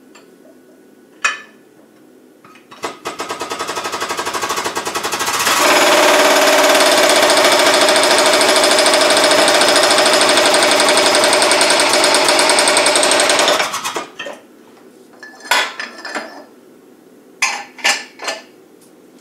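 Simplex hydraulic shop press's pump running in a rapid, even chatter that builds over a couple of seconds, holds steady, then cuts off suddenly, as the ram presses a bearing onto a gearbox mainshaft. A few short metallic clicks follow near the end.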